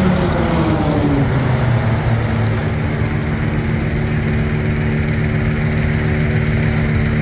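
Engines of three Mexican Air Force planes flying low overhead in formation: their drone drops in pitch during the first second or so as they pass, then carries on as a steady drone.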